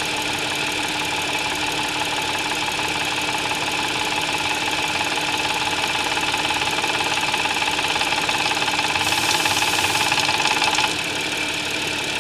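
Audi S-model engine idling from a cold start with an abnormal noise: a rapid 'la-la-la' rattle and a 'gua-gua-gua' croak that swell and fade rather than sounding steadily. The noise is most evident with the engine cold. The level eases slightly near the end.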